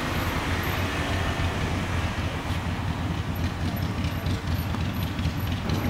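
Wind buffeting the microphone, a loud uneven low rumble, strong enough to whip the flags overhead. Faint high-pitched chirps repeat about two or three times a second in the second half.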